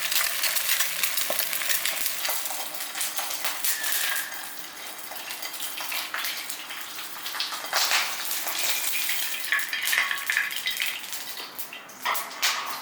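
An egg frying in hot oil in a pan, sizzling and crackling steadily, loudest in the first few seconds and then settling a little quieter. A few clinks of a utensil against the pan come near the end.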